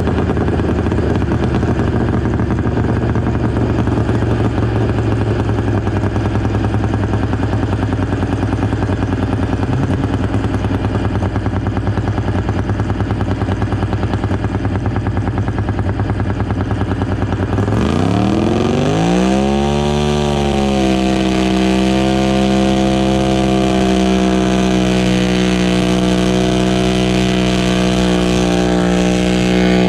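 Pulling garden tractor's engine idling steadily, then revving up about two-thirds of the way through and holding at a steady high speed.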